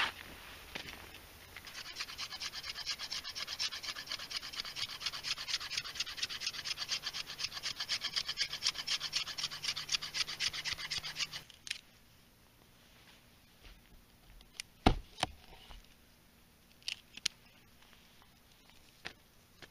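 Knife blade scraping a stick of green western red cedar heartwood in quick, even strokes, about four or five a second, to raise fine tinder shavings. The scraping stops abruptly about two-thirds of the way through, leaving a few scattered light knocks, one sharper than the rest.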